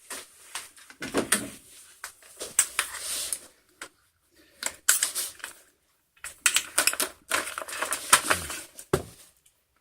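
Adhesive tape being peeled off a bundle of roof-rack crossbars: bursts of rapid crackling rips, with short pauses between pulls.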